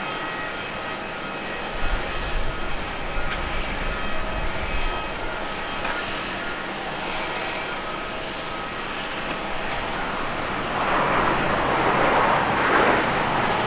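Airbus A350-900's Rolls-Royce Trent XWB engines whining steadily as the jet comes over the threshold and touches down. About ten seconds in, a louder rush of engine noise builds and peaks, the reverse thrust spooling up on the landing rollout.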